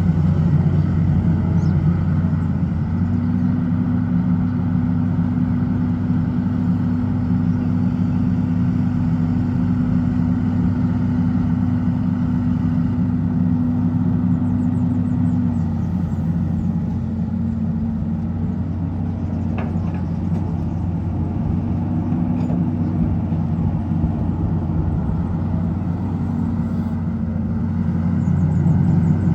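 Hitachi EX200 excavator's diesel engine running steadily under working load. Its pitch steps up about three seconds in, drops back about halfway through, and climbs again near the end.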